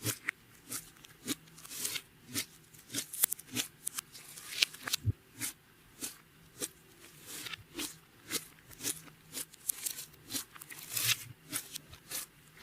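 Clear slime being worked by hand, giving irregular sharp clicks and pops, a few each second.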